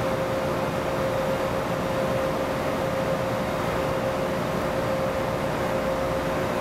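Steady background hiss with a constant mid-pitched hum. No clicks or knocks from the hex-key work stand out.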